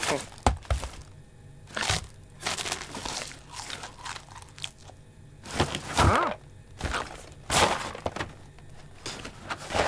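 Cartoon sound effects: a string of separate short cracks and crunches, with a brief pitched cry that bends up and down about six seconds in.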